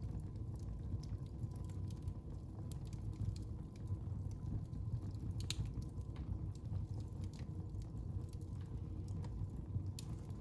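Wood fire burning in a fireplace: a steady low rumble of flames with scattered crackles and pops, two sharper pops about halfway through and near the end.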